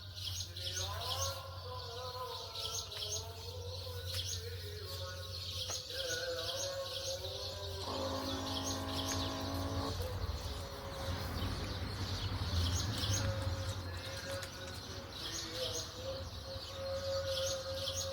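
Small birds chirping in quick repeated runs of short high notes throughout, over a steady low hum. A held, droning tone with overtones sounds for about two seconds near the middle.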